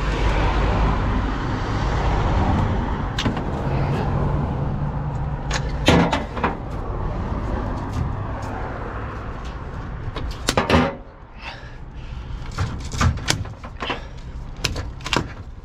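A truck's engine running steadily, with sharp metallic clunks and knocks as trailer air lines and couplings are handled: two loud clunks about six and eleven seconds in, then a quicker run of lighter knocks near the end. The steady low running sound falls away about eleven seconds in.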